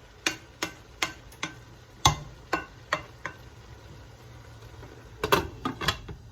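A metal utensil knocking against a cooking pot while stirring, each knock ringing briefly. About eight evenly spaced knocks in the first three and a half seconds, then a quicker run of four or five near the end.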